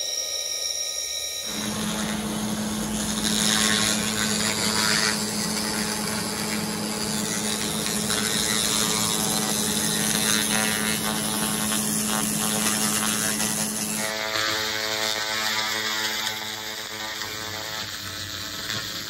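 Handheld laser welding, cleaning and cutting machine running while its laser head works on steel: a steady machine hum with a hiss over it. After about fourteen seconds the hum changes to a different set of steady tones.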